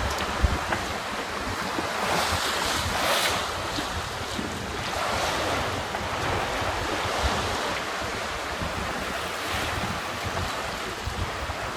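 Water rushing and splashing past a small sailboat's hull under sail at about 7 knots, swelling in surges as waves pass, with wind buffeting the microphone. A brief knock about half a second in.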